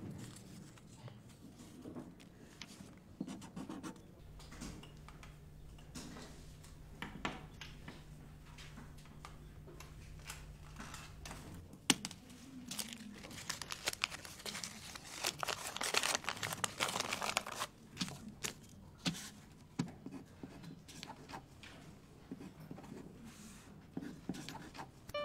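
Soft handling sounds, crinkling and rustling as of paper or plastic, with scattered light clicks. A steady low hum runs through the first half and stops with a sharp click. A denser stretch of crinkling follows.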